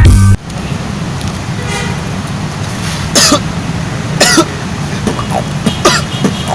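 A person coughing hard three times, a second or so apart, over a steady low rumble. A music cue cuts off just after the start.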